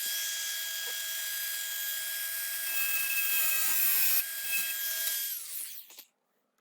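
Small high-speed grinder running with a steady high whine and hiss for about five seconds, cutting a latch part down to length, then spinning down near the end.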